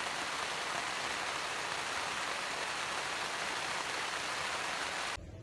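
Steady, even hiss that cuts off suddenly near the end.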